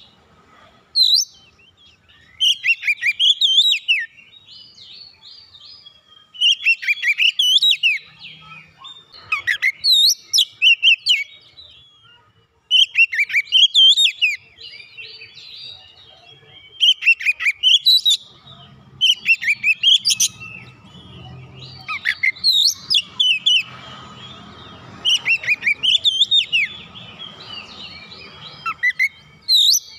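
Oriental magpie-robin (kacer) singing in its fighting style: about ten loud bursts of fast, varied whistled and chattering phrases, each one to two seconds long, with short pauses between them.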